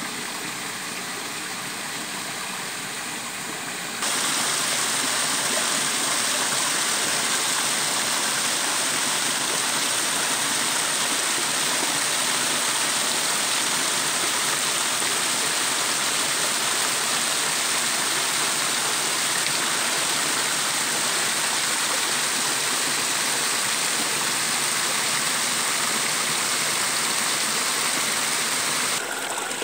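Shallow stream running over pebbles, then, about four seconds in, the louder, steady rush of a small waterfall splashing onto rocks, which drops back to the quieter stream sound just before the end.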